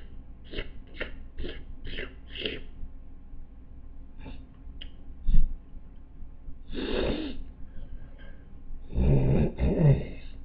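A calico cat licking its fur close to the microphone: a run of short tongue strokes about two a second, then a few longer, louder breathy strokes later on.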